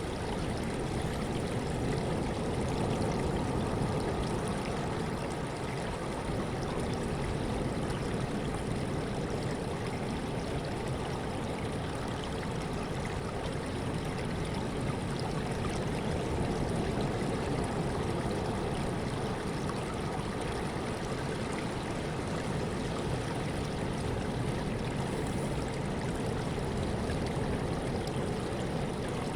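Sea water washing and rushing steadily, a continuous even noise with only slight swells in loudness.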